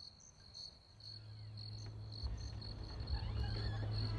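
Crickets chirping in an evening ambience, a regular high-pitched pulse about two or three times a second. About a second in, a low steady hum with a rumble comes up beneath them and grows louder.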